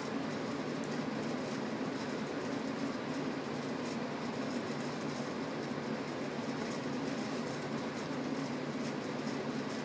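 Steady mechanical hum and hiss with an even drone in the low range.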